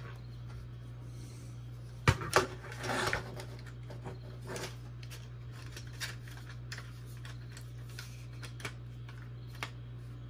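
Plastic robot-kit body and cover being handled and fitted together: two sharp clacks about two seconds in, a brief rubbing scrape just after, then scattered light clicks, over a steady low hum.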